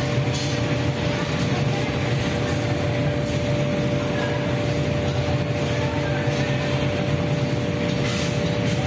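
Glass-melting furnace burners and electric pedestal fans running in a glass bangle works: a steady, even noise with a steady hum on top.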